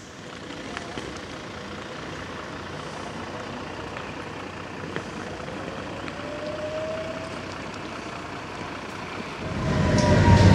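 Tram standing at a stop with a low steady hum and a faint rising whine around six seconds in. About nine and a half seconds in it pulls away: the rumble of its motors and wheels on the rails grows much louder, with a high whine falling in pitch.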